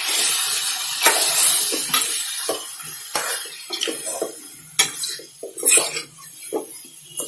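A metal spoon scraping and knocking against an aluminium pot while stirring spice-coated chicken pieces frying in oil. A sizzle fades over the first few seconds, leaving separate scrapes and clinks of the spoon.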